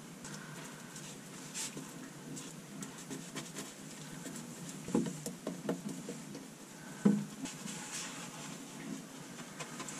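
Paintbrush dabbing and stroking wet epoxy into fiberglass cloth laid over plywood: an irregular soft, wet patter of brush strokes, with louder knocks about five and seven seconds in.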